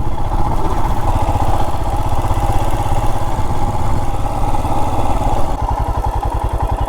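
Royal Enfield Himalayan BS6's 411 cc single-cylinder engine running with its steady beat. About five and a half seconds in the sound drops and settles to a lower, more even thump, as the throttle eases off.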